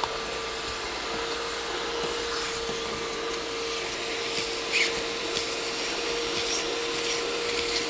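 A Bissell portable spot cleaner runs with a steady motor whine while its nozzle rubs and scrapes over the wet upholstery, sucking up the water and dirt.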